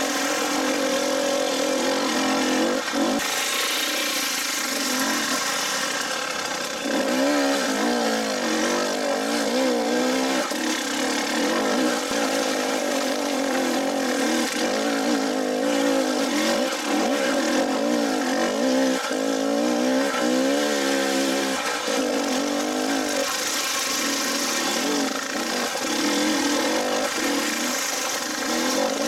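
Dirt bike engine running under load on a rocky trail, its pitch rising and falling continually as the throttle is opened and closed.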